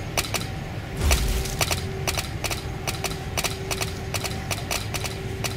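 Irregular sharp clicks and knocks, several a second, over a steady low rumble.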